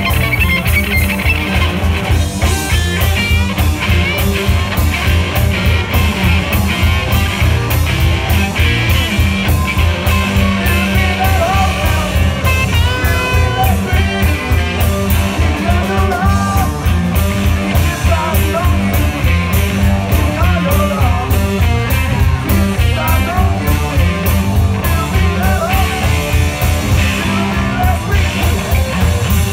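Live blues-rock band playing loud: electric guitars over a drum kit with a steady beat. A lead guitar line with bending notes rides on top.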